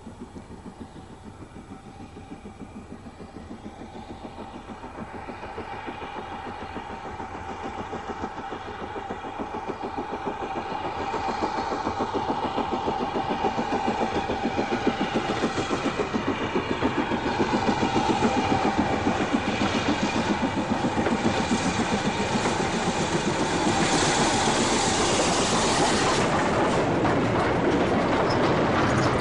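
BR Standard Class 4 4-6-0 steam locomotive No. 75027, in its original single-chimney form, working a freight train, its rhythmic exhaust beats growing louder over the first half and then holding steady.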